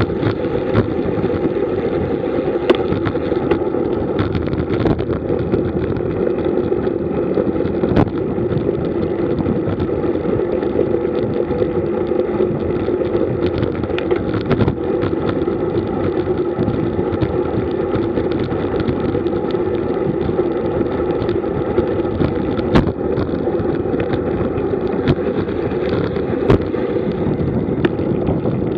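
Wind rushing over the microphone of a camera riding on a road bike at about 35 km/h, with tyre and road noise: a steady rush broken by occasional sharp clicks and knocks from bumps in the road.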